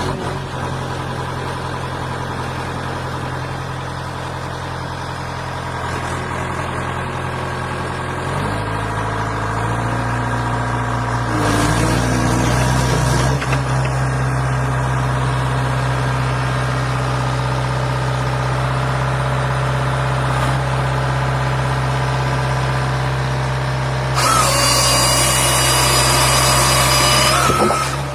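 Heavy machine's diesel engine running steadily, its pitch stepping up about a third of the way through as it is revved under load. Near the end a loud hiss with a high whine comes in for a few seconds, then stops.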